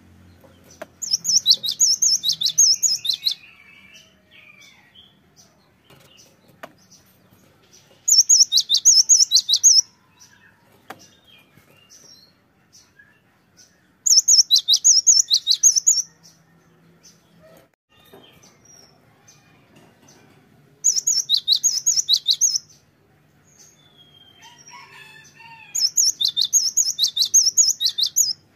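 Cinereous tit (gelatik batu) singing: five loud bursts of rapidly repeated high notes, each about two seconds long, coming roughly every six seconds.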